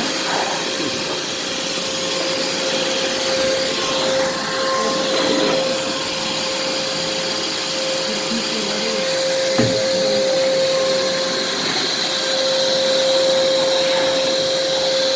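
American Micronic 1600 W wet and dry vacuum cleaner running in blower mode: a steady motor whine over the rush of air, with one short knock about nine and a half seconds in.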